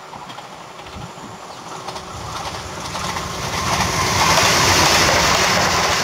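Newag Impuls II electric multiple unit approaching along the test track: the rushing noise of its wheels on the rails grows steadily louder and is at its loudest about four to five seconds in.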